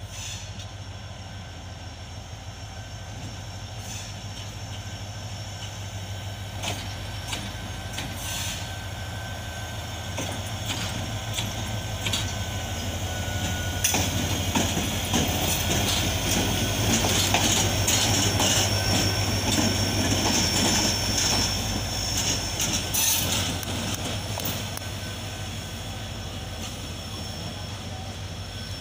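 HGMU-30 diesel-electric locomotive running light past at close range. Its engine drones steadily, growing louder to a peak about halfway through and then fading, with wheels clicking over rail joints and a faint high squeal in the middle.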